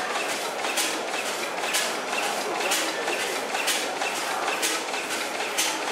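A slow-running steam engine, with a short hiss of exhaust steam about once a second over a steady mechanical clatter.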